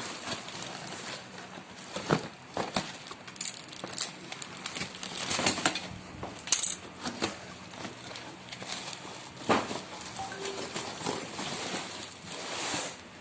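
Lamps and their packaging being handled during unboxing: scattered sharp clinks and knocks, several seconds apart, with brief hissy rustles in between.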